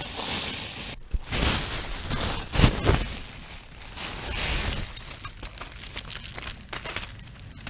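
Plastic bag rustling and crinkling as it is handled and opened. From about five seconds in, hard-shelled ginkgo nuts click against each other as a hand rummages through them and scoops up a handful.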